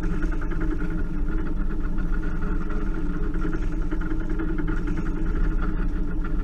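Sailboat's inboard engine running steadily as the boat motors under bare poles with its sails furled.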